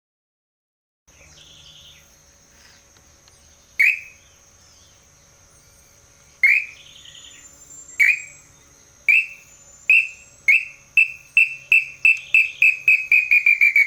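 A pio bird-call whistle blown in imitation of the lambu pé-vermelho (small-billed tinamou) song: single clear whistled notes, a few seconds apart at first, then coming faster and faster into a rapid run that starts to slide down in pitch near the end. A steady high insect drone runs underneath.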